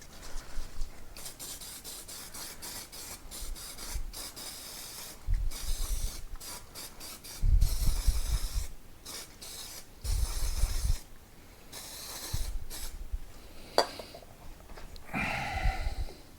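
Aerosol can of brake cleaner spraying onto the motorcycle's brakes in several hissing bursts over about ten seconds.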